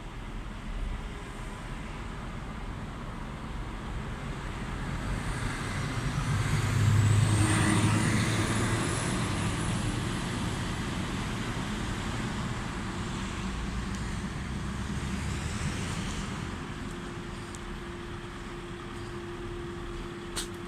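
A road vehicle passing by on the street. Its noise swells to a peak about a third of the way in and then fades slowly, with a high whine rising in pitch as it goes. A steady low hum sets in near the end, and there is a single click just before it closes.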